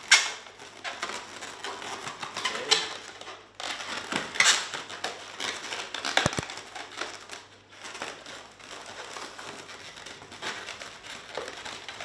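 Latex modelling balloons rubbing and squeaking against each other as they are twisted and hooked together, in irregular bursts of crinkly friction noise.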